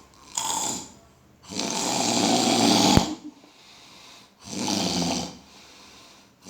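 A man snoring loudly in his sleep: three snores, the middle one the longest, growing louder before it cuts off abruptly about three seconds in.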